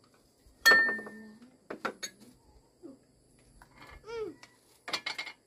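Spoon and ceramic bowls clinking as rice is served from a pot: one sharp, ringing clink about a second in, then a few lighter knocks, with a child's brief voice and a rustle near the end.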